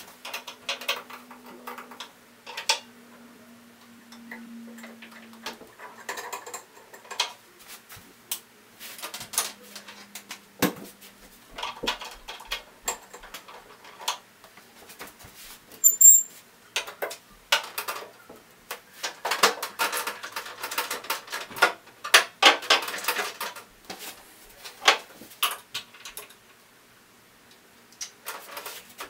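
Irregular clicks, taps and rattles of hard plastic cover panels being handled and taken off an opened Brother PR620 embroidery machine, busiest in a run of rattling about two-thirds of the way in.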